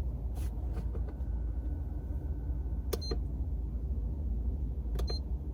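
A used 12-volt portable fridge running with a steady low hum. Two short clicky beeps come from its control panel about three and five seconds in.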